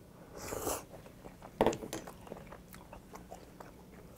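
A man chewing and biting a mouthful of tteokbokki close to the microphone. A short noisy burst comes about half a second in, a sharp click is the loudest moment about a second and a half in, and small mouth clicks follow.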